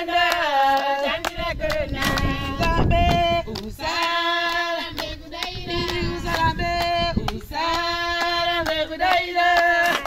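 Voices singing a song, holding long notes that slide into one another, with a few short sharp clicks among them.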